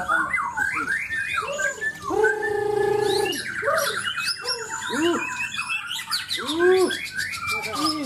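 White-crowned shamas (murai Borneo) singing over one another: varied whistled phrases of quick arched notes, a held buzzy note about two seconds in, then a fast rattling trill.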